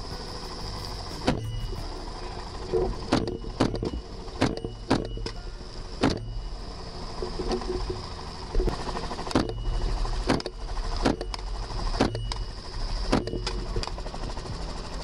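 Helicopter running in flight, a steady low rotor drone with a high whine over it. Sharp cracks come through it about once a second at uneven spacing.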